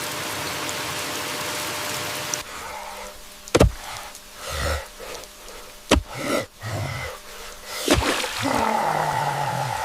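Steady rain for the first couple of seconds, then it drops away abruptly and three sharp knocks come about two seconds apart, with softer rustling between them and a drawn-out pitched sound near the end.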